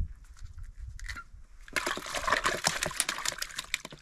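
Water splashing and sloshing in a dense, irregular crackle that starts a little under two seconds in.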